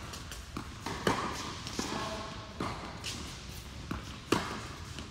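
Tennis rally on an indoor hard court: sharp cracks of racket strikes and ball bounces, several in a row, each with a short echo, the sharpest a little past four seconds in.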